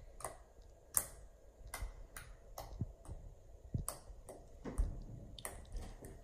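Poke sounds from a finger jabbing soft, stretchy homemade yellow slime made of glue and lotion: a string of sharp little pops and clicks, about a dozen, spaced unevenly every half second to a second.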